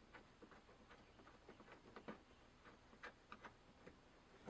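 Faint, uneven clicking of a Snap-on ratcheting end wrench turning a nut, roughly three clicks a second.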